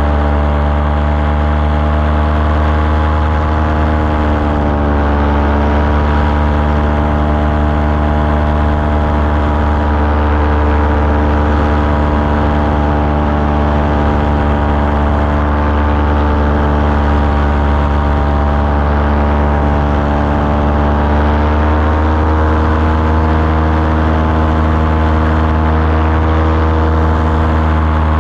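Small aircraft engine running steadily, with its pitch shifting slightly a couple of times, over a rushing noise.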